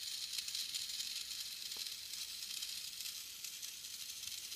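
Small DC motor and plastic gears of a toy saltwater fuel-cell car kit running off a small solar panel in sunlight, giving a steady high-pitched whir.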